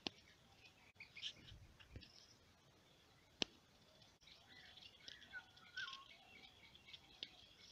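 Faint birds chirping, with short high notes and a few gliding calls scattered through. A sharp click comes at the very start and a louder one about three and a half seconds in.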